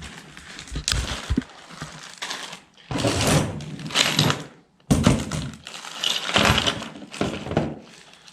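A plastic bag of small parts being handled: crinkling plastic with small pieces clicking and clattering against each other in irregular bursts.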